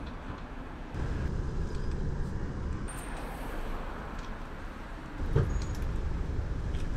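Road traffic on a city street: a steady low rumble of passing cars that gets louder about a second in, with one short thump about five seconds in.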